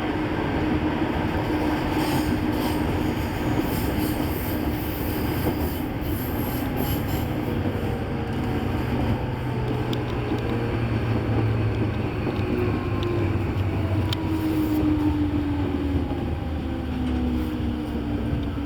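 Running noise of a Nambu Branch Line electric train, heard from inside the front car: a steady rumble with a motor hum, a few sharp clicks from the rails, and the hum's pitch sliding down in the second half as the train slows.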